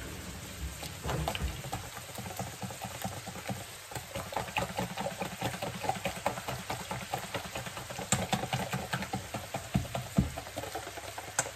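Wire balloon whisk beating a creamy batter of butter, sugar and yogurt in a stainless steel bowl: rapid, steady strokes of wires clattering and scraping against the metal, with a few sharper clinks in the second half.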